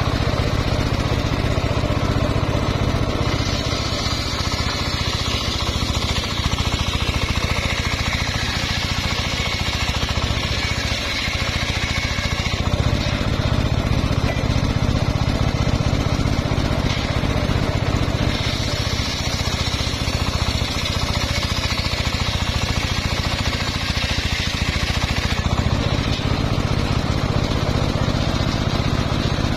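Homemade table circular saw running steadily, its blade ripping a mahogany log lengthwise. A harsher, higher cutting sound swells from about three to twelve seconds in, and again from about eighteen to twenty-five.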